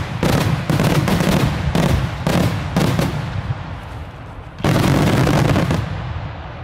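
Daytime fireworks shells bursting overhead: a run of loud bangs about every half second, then a dense volley of overlapping bangs lasting about a second, each with a rumbling echo that dies away.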